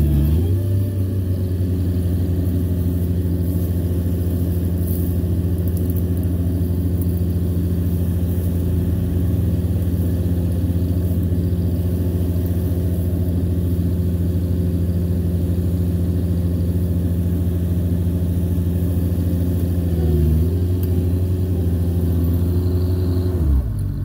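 Mini skid steer engine running steadily at high throttle during a recovery pull, its pitch sagging briefly under load at the start and again about 20 seconds in, then dropping away just before the end.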